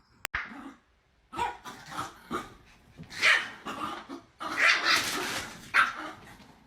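A dog barking repeatedly in a run of loud calls, some short and some drawn out, after a sharp click near the start.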